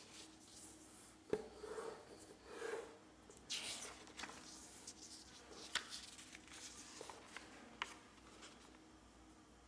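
Origami paper being handled and folded: soft rustles and crisp creasing, with a few sharp clicks, the loudest about a second in.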